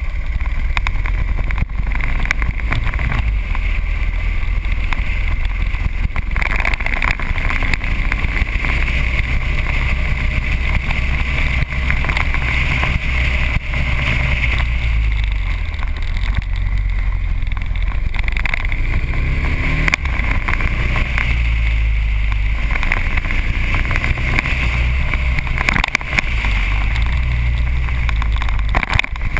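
Motorcycle running at road speed under heavy wind noise on the microphone, its engine note rising and falling a few times through the bends.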